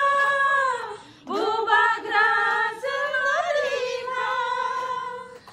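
A group of women singing together without accompaniment, holding long notes; one phrase ends about a second in and the next starts a moment later, fading out near the end.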